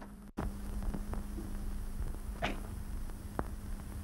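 Hiss and low steady hum of an old 1930s film soundtrack between lines, cut off for an instant just after the start, with a few faint clicks and one brief swish about two and a half seconds in.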